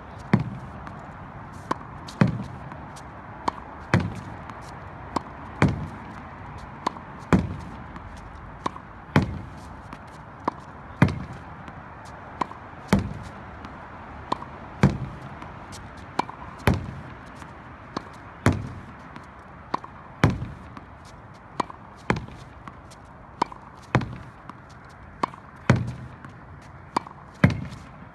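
Tennis ball hit against a practice wall in a steady solo rally: racket strikes, the ball hitting the wall and bouncing on the hard court. The knocks come in an even rhythm of one pair about every two seconds, a light sharp click and then a louder, short-ringing knock.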